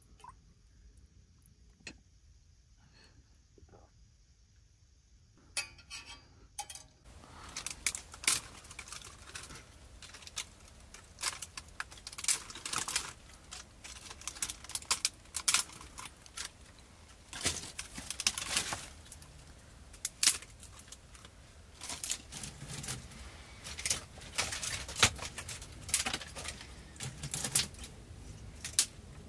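Irregular clinking and clattering of hard objects being handled, a run of sharp clicks that starts a few seconds in after a quiet opening.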